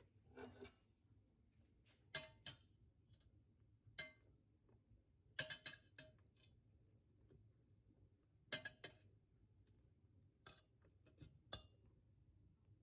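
Scattered light clicks and clinks of hard objects, about a dozen at uneven intervals, some in quick pairs, over a faint room hum.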